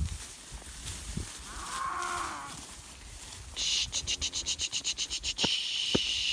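A cow moos once, about two seconds in. From about halfway through, a high, rapidly pulsing insect trill joins it.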